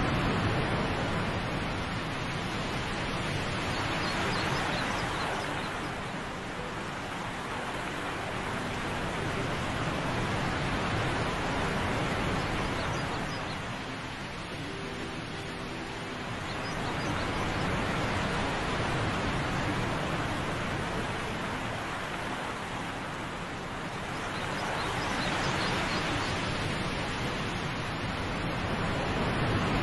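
Rushing water of a wide cascading waterfall: a steady roar that swells and fades slowly every several seconds.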